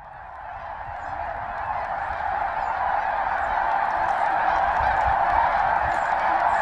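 A huge flock of snow geese calling as they fly overhead: a continuous din of countless overlapping honking calls. It grows louder over the first couple of seconds, then holds steady.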